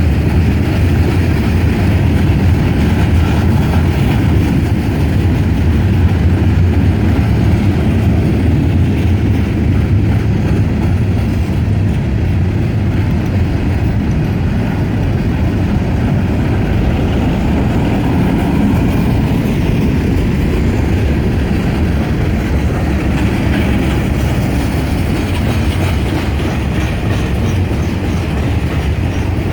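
Cars of a long CSX mixed freight train rolling past, a steady, unbroken noise of steel wheels on the rails.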